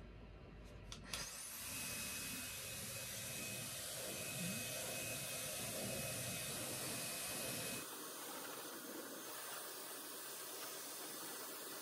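OA Super Windy hair dryer, fitted with its treatment nozzle, starting up after a couple of small clicks about a second in, then blowing steadily: an even rush of air with a faint high whine. About eight seconds in the sound becomes thinner and quieter, losing its low end.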